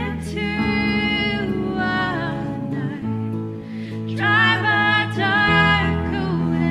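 A woman sings a slow, tender worship song with a live band of acoustic guitars, cello and keyboard. Two sung phrases with a quieter gap between them, over sustained low notes.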